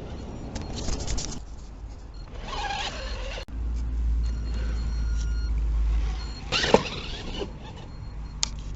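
Radio-controlled car driving in mud: a faint thin motor whine over a steady low rumble, with a sudden break partway through and a sharp knock about seven seconds in.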